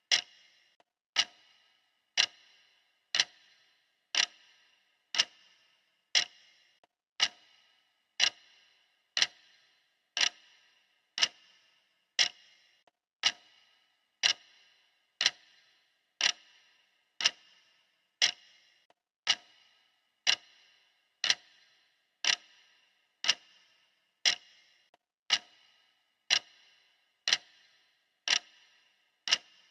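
Clock ticking steadily, one sharp tick each second, every tick dying away quickly.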